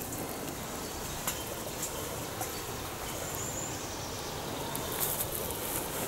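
Steady outdoor background noise in a grassy meadow, with a few faint clicks and a short high tone about three and a half seconds in.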